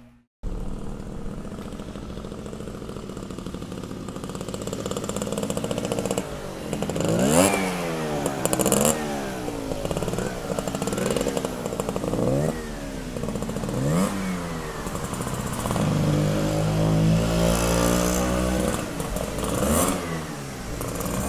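Motorcycle engine idling steadily, then revved in a series of quick throttle blips, each rising and falling in pitch, with a few seconds of steadier higher running and one more rev near the end.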